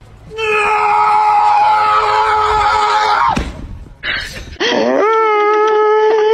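Two long, high-pitched cries. The first is a steady scream held for about three seconds that ends in a falling drop. The second, starting near the end, is a Siberian husky howling, rising in pitch and then holding one long note.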